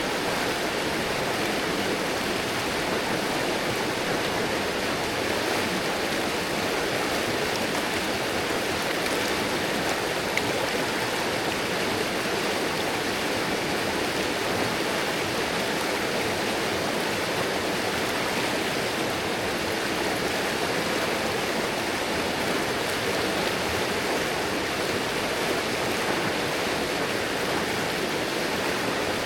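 River water rushing and splashing over rocks in a steady, even flow.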